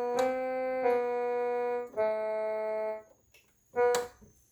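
Kids' 61-key electronic keyboard being played: steady held notes that change three times over about three seconds, stop, and then one short note near the end.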